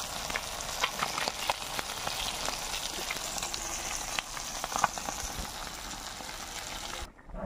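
Small fish frying in hot oil in an iron kadai: a steady sizzle with scattered crackles and pops, cutting off suddenly near the end.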